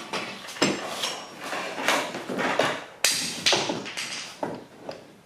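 Irregular metal knocks and clanks from a Johnson 15 hp outboard being handled and shifted on its mount, the loudest about three seconds in.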